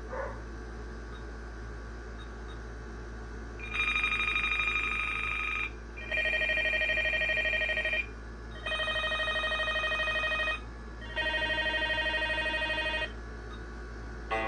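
Electronic ringtones from a VTech phone: after a few seconds of low hum, four warbling electronic ring bursts of about two seconds each, separated by short pauses, each a little different in pitch from the one before.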